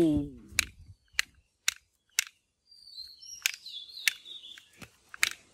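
About seven short, sharp clicks spread across a few seconds, with faint bird chirps in the middle.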